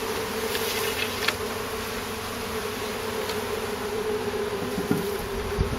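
Honey bee swarm buzzing: a steady hum of many bees in flight around the freshly hived cluster. A light knock or two near the end.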